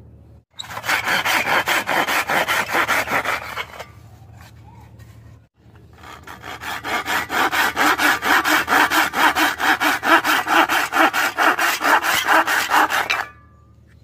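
Fine-toothed handsaw cutting through a softwood pine strip by hand, in quick even strokes. It is heard in two spells: a short one of about three seconds, then a pause, then a longer run of about seven seconds that stops shortly before the end.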